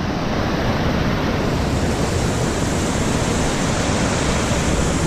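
Waterfall rushing, a steady dense noise of falling water.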